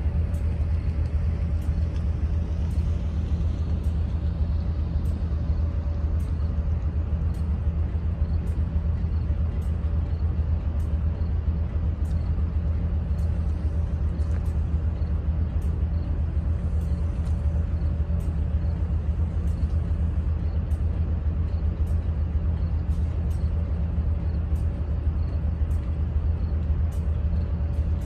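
Diesel-electric locomotive idling with a steady low engine hum. A faint, very high tick repeats about twice a second throughout.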